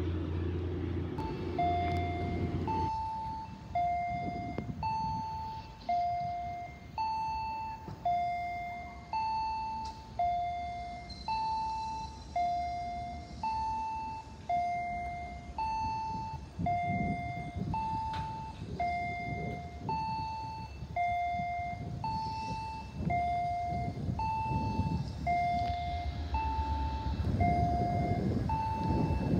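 Electronic two-tone platform warning signal alternating a higher and a lower beep, about one note a second. A diesel train's low idling hum fades out in the first few seconds, and the rumble of an approaching diesel passenger train rises near the end.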